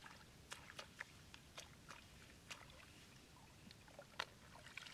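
Near silence with faint, irregular clicks and drips of water, from hands working in shallow muddy flood water and putting mud snails into a wicker basket. The sharpest click comes a little after four seconds in.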